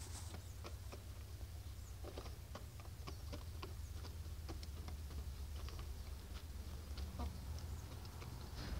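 White Australorp chickens pecking at feed on a dirt floor: beaks tapping in quick, irregular clicks, over a steady low rumble.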